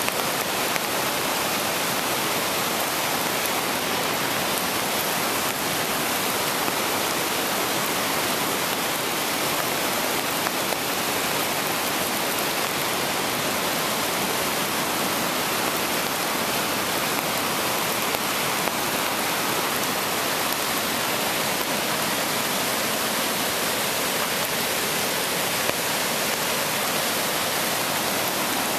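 A river swollen by two days of heavy rain rushing in spate, a steady, even wash of white water.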